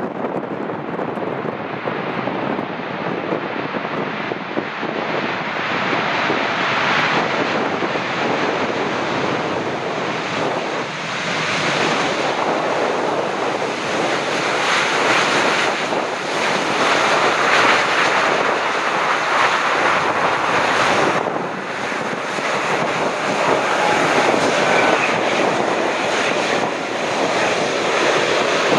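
Boeing 787-8 landing on a flooded, wet runway: the jet engines and the hiss of water spray from the wheels through touchdown and rollout. The noise swells about halfway through as the airliner decelerates, with wind buffeting the microphone.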